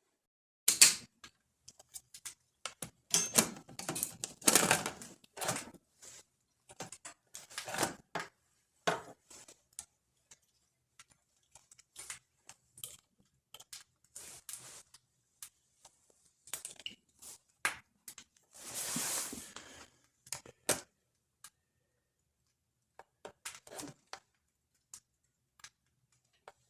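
Irregular clicks, knocks and rustles of small objects being handled in a small room, busiest in the first third, with one longer scraping hiss about two-thirds of the way through.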